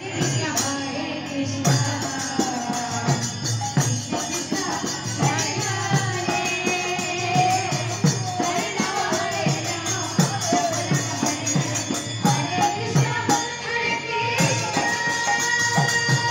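Devotional kirtan music: a two-headed barrel drum beats out a steady rhythm whose bass strokes slide down in pitch, with jingling metal percussion and a group singing over it.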